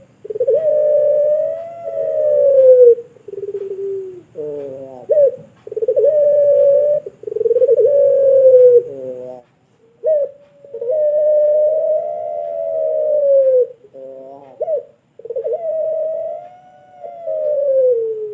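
Puter pelung, a domestic barbary dove bred for a long voice, cooing: a run of long drawn-out coos, each two to three seconds, broken twice by short notes that quickly dip and rise.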